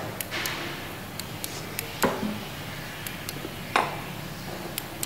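Metal parts of a utility vehicle's driveshaft universal joint and frame knocking together as they are handled: two sharp metallic knocks with a short ring, about two seconds in and near four seconds, among lighter clicks.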